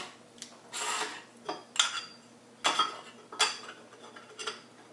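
Tape measure and black shaft tubes handled on a wooden tabletop: a series of sharp clicks and light knocks, with a short scrape about a second in.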